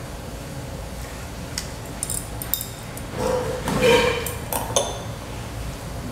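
Metal chopsticks clinking and scraping against a porcelain rice bowl during eating: several light, ringing clinks, with the loudest stretch about four seconds in.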